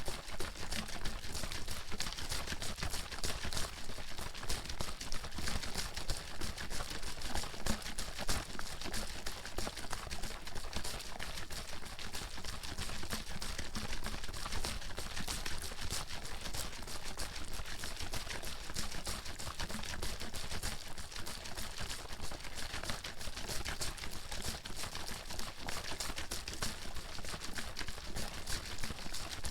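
Water bottle being shaken continuously, the water sloshing and slapping inside in a dense stream of rapid splashy clicks, with no pause.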